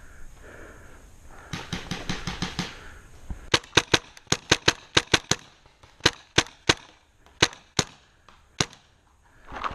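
Tippmann X7 paintball marker firing single shots in quick, irregular strings: about fifteen sharp cracks starting about three and a half seconds in. A faster string of fainter shots comes before them.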